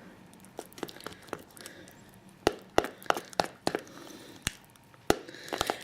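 A mixing utensil clicking and tapping against a bowl as a thick, icing-like paste of aloe gel and coconut and castor oils is beaten by hand: irregular sharp clicks, a few a second, louder from about halfway through.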